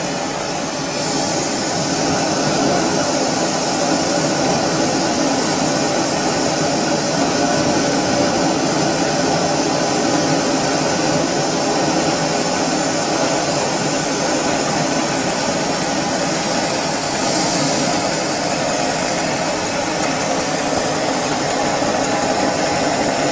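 Antique hot air (Stirling-type) engine fan, a small two-piston motor heated by a gas burner, running steadily with a constant hiss over its mechanical run.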